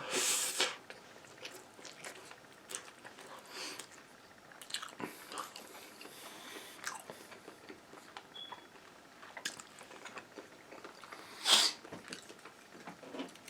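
Close-up chewing and biting of Panda Express takeout: irregular wet smacks and small crunches, with a louder noisy burst near the start and another about three-quarters of the way through.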